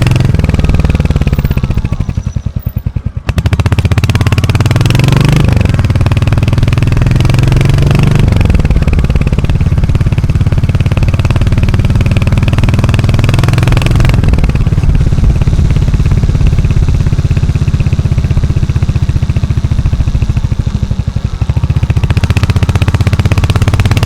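Royal Enfield Hunter 350's single-cylinder engine running, the exhaust thump easing off briefly about two seconds in, then the revs climbing and falling several times.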